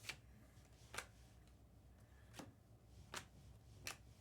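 Faint, sharp clicks of 2024 Panini Optic football cards being flipped one at a time off a stack by hand, five in all, roughly one a second.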